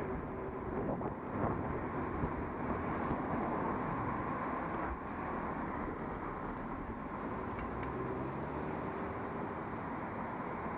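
Steady travel noise on a moving action camera, rumble and wind on the microphone, with a faint steady hum throughout.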